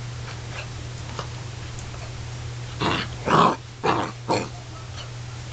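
Basset hound puppy giving four short, gruff play barks in quick succession about three seconds in, over a steady low hum.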